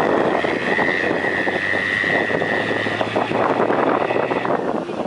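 Bus running along a rough road, heard from inside: engine hum with road and wind noise, and a steady high whine that stops near the end.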